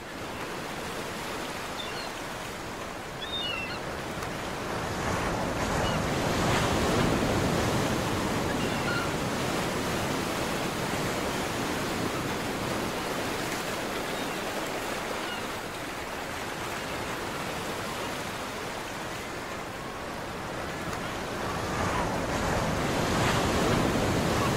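Ocean surf: waves breaking and washing up the beach in a steady rush that swells and eases, louder at the middle and near the end, with a few faint high chirps about three seconds in.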